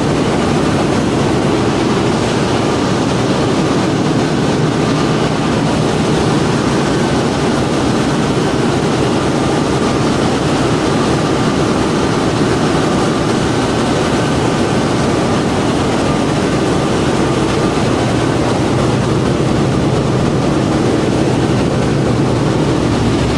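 Loud, steady machinery din in the engine room of an LNG carrier with dual-fuel diesel-electric propulsion: running machinery blends into one dense hum with a few faint, steady whining tones.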